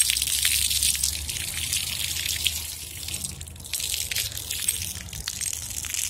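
Ground-level splash-pad fountain jets spraying water that splashes onto wet pavement: a steady hiss of spray with many small splashes, loudest at first, easing briefly about halfway, then picking up again.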